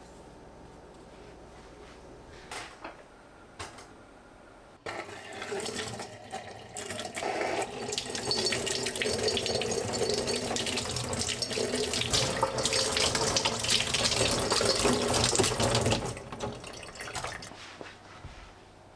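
Tap water running into a kitchen sink: it comes on suddenly about five seconds in, runs strongly for about ten seconds, then tapers off near the end. A few faint clicks come before it.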